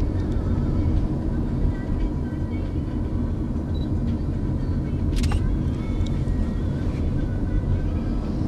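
Steady road and engine rumble inside a moving car's cabin, with a single sharp click about five seconds in.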